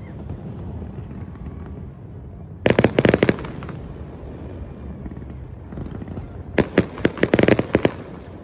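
New Year's fireworks going off: two rapid volleys of sharp cracks, one about three seconds in and a longer one near the end, over a steady low rumble.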